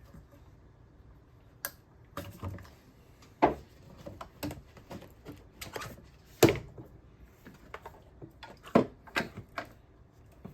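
Irregular clicks and knocks of hand tools and engine parts handled in the engine bay during coil-pack removal, a dozen or so spread over several seconds, the loudest about three and a half, six and a half and nine seconds in.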